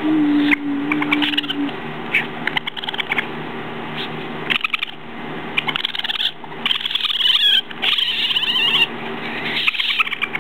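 Baby raccoons chittering and twittering in short high-pitched trills, busiest in the second half, over a steady low hum.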